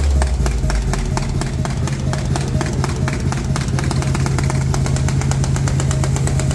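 Ground fireworks going off in a rapid, even string of sharp bangs, about eight or nine a second, over a steady low drone.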